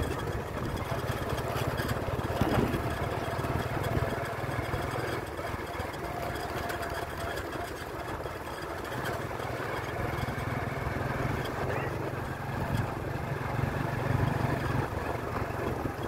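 A vehicle's engine running steadily, heard from on board as it drives along, with a constant low hum and road noise.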